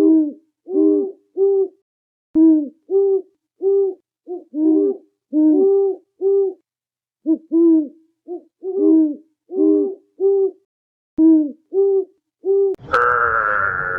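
A rapid series of short hooting calls from an animal or bird, each note rising and falling, coming in uneven groups. Near the end a long, higher, steady call begins.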